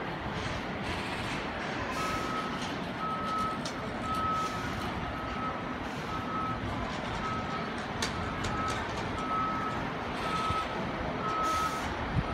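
A fire engine's reverse alarm beeping about once a second, starting about two seconds in, as the 2016 KME pumper backs up, over its running engine and street noise.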